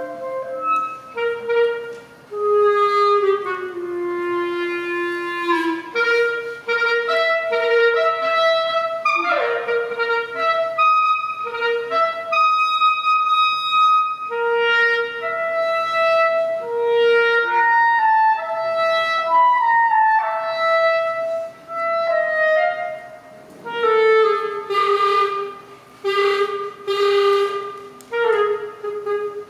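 Solo clarinet improvising a melody of held and stepping notes, with a quick upward glide about nine seconds in. Near the end the tone turns rough and noisy, with rapid repeated pulses around one low note.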